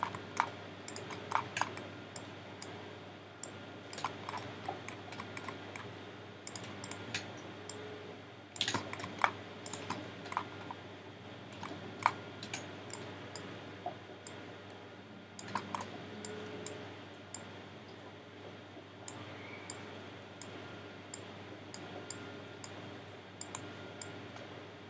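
Irregular clicks of a computer mouse and keyboard, a few at a time with short pauses between, over a faint steady hum.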